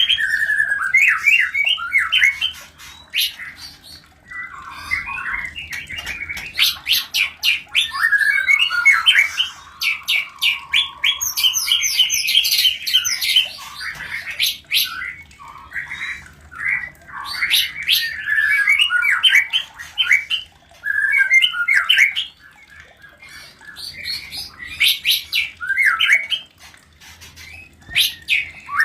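White-rumped shamas calling while mating: rapid chattering and squawking phrases in bursts, with short pauses between them.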